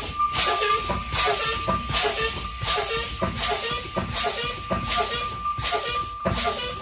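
A Freightliner truck's air brake system hisses out air with each pump of the brake pedal, about every three-quarters of a second, as the air pressure is pumped down during a low-pressure check. The low-air warning buzzer sounds as a steady tone underneath.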